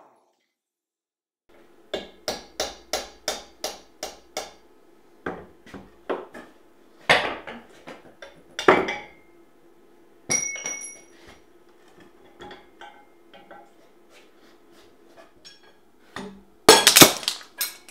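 Hammer blows on a brass drift driving a stuck pinion shaft out of a Dana 25 front axle housing. A quick even run of about eight taps comes first, then slower, heavier single strikes, some with a short metallic ring, and a loud burst of clanks near the end.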